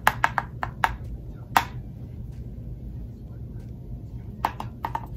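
Sharp taps and clicks from handling makeup tools, in two short clusters (a quick run in the first second and another near the end), over a steady low hum.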